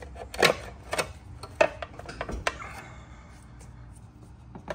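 Screwdriver prying at the rim of a golf-cart hubcap: a handful of sharp metallic clicks and scrapes, the loudest about half a second in and again about a second later, then quieter.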